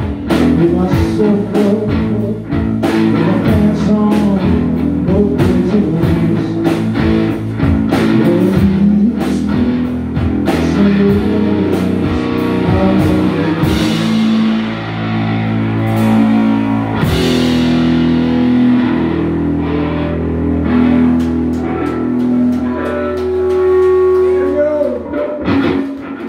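Live blues-rock from an electric guitar and a drum kit, with a man singing. In the second half the drumming thins to occasional crashes under held guitar chords as the song winds to its end.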